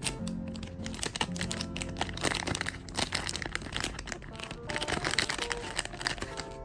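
Plastic crinkling and crackling in irregular bursts as it is handled, over background music.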